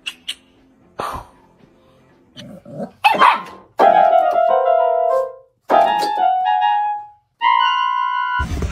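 Electronic keyboard sounding three held notes or chords in turn, each one to two seconds long, as a dog presses its keys. A short dog bark comes just before the first note. Before that, in the first second or so, there are a few brief sharp sounds.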